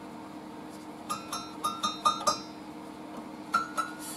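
Scroll saw blade plucked by finger: short pinging notes, a quick run of about six a little after a second in, then two more near the end, the pitch creeping up as the blade is tensioned. The tone is the check of blade tension.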